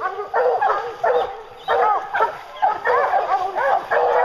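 A pack of English hounds baying as they run a bear, several dogs' calls overlapping, thickening to an almost unbroken chorus about halfway in.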